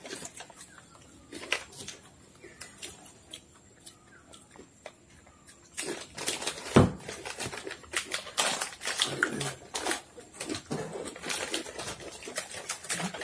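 Close-up crunching and chewing of potato crackers, with plastic snack packets crinkling as hands dig into them. The crackling is sparse for the first few seconds and turns busy about six seconds in, and a single sharp knock comes about seven seconds in.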